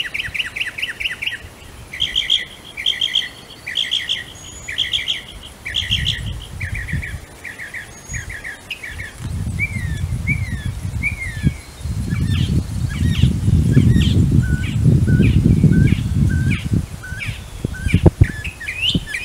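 Northern mockingbird singing: strings of rapid notes, each phrase repeated several times before it switches to a new one, with slurred, sweeping notes later on. A low rumble sits underneath through the middle.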